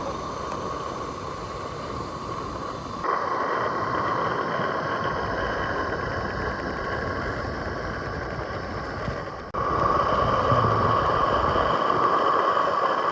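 Gas burner of a Roundhouse 32mm live-steam locomotive hissing steadily while the boiler raises steam, stepping louder about three seconds in and again near ten seconds.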